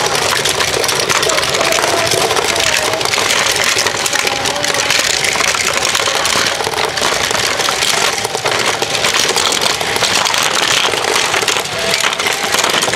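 Battery-powered Tomica toy track set running, its motorized lift carrying die-cast toy cars up the plastic ramps with a continuous dense clatter of cars on plastic track.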